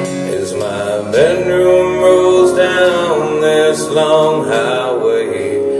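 Male voice singing long held, wordless notes over a guitar accompaniment, the voice coming in about a second in.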